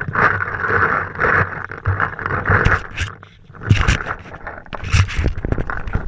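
Close-up handling and movement noise from a paintball player on the move: gear and marker rustling and scraping against the camera, with breathy pulses of heavy breathing and several sharp knocks.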